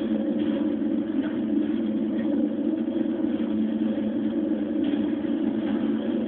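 A steady, unbroken low rumbling drone with a noisy hiss above it.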